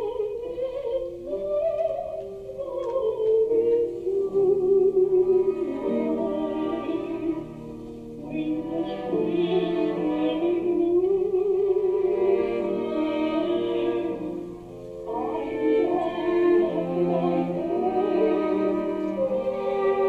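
A live band with bowed violin and keyboard plays the slow opening of a song, with long, wavering held notes.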